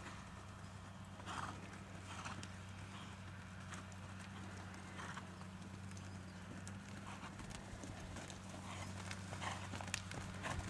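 Horse's hoofbeats as it trots on a soft arena surface, with a few louder short sounds and sharp clicks toward the end, over a steady low hum.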